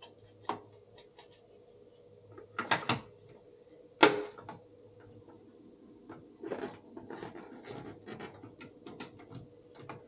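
Plastic knocks, clicks and scraping as the housing of a Mitsubishi pipe-type ventilation fan is pushed into the wall duct and its grille pressed into place. The loudest is a sharp click about four seconds in, followed by a few seconds of rattly rubbing and small clicks.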